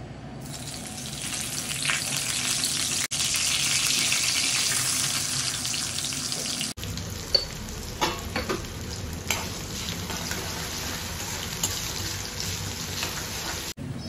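Food sizzling as it fries in a pan, a steady hiss that is loudest in the first half. From about halfway on, a utensil stirring and clinking against the pan adds short knocks.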